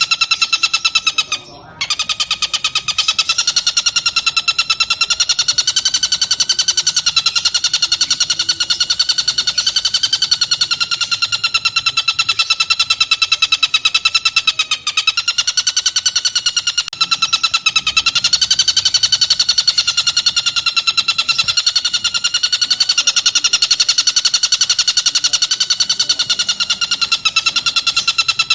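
Tengkek buto (kingfisher) song from a masteran recording: one long, rapid, buzzy trill held almost unbroken, its pitch wavering slightly, with one short break about a second and a half in.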